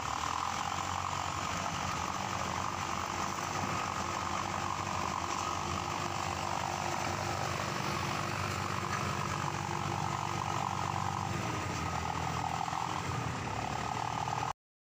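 Farm tractor engine running steadily as it pulls a trailer, heard from on board; the sound cuts off suddenly near the end.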